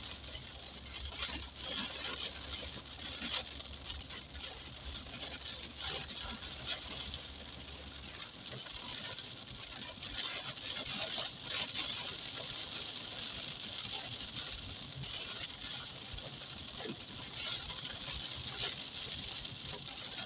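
Heavy rain pattering on the car's roof and windshield, heard from inside the car, a dense hiss with many small irregular taps. A low steady hum under it stops about eight seconds in.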